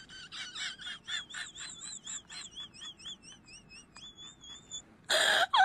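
Rapid high-pitched warbling chirps, about four or five a second, wavering up and down in pitch; near the end they stop and a short loud burst of noise follows.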